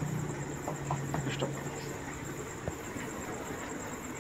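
A few light clicks and taps of metal engine parts being handled, clustered about a second in with one more near three seconds, over a steady high-pitched whine and a low hum that fades out about two seconds in.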